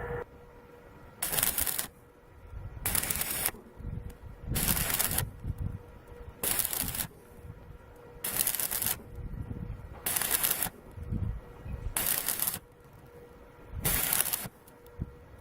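Imax 120 welder's arc crackling in short bursts of about half a second, eight times, roughly every two seconds, as a muffler is tack- or stitch-welded.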